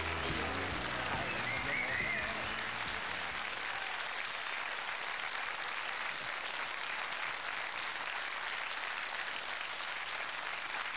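Studio audience applauding steadily, with the show's entrance music fading out about three seconds in.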